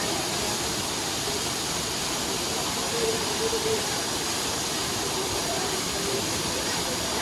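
Steady roar of a waterfall: a continuous, even rush of falling water.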